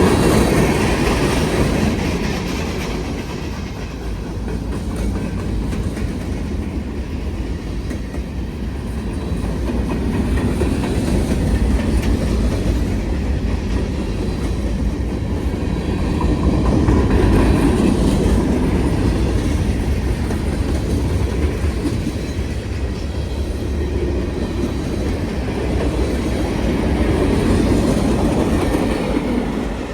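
Norfolk Southern freight train's cars rolling past the crossing, wheels clacking over the rail joints in a steady rumble that swells and eases, dropping off at the very end.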